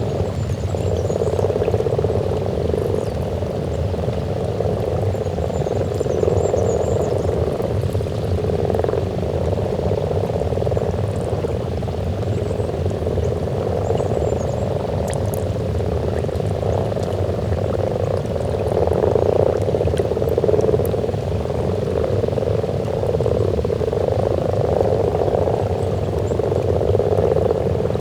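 Breeding chorus of many common frogs croaking together at their spawning pond: a dense, continuous low purring that swells and eases.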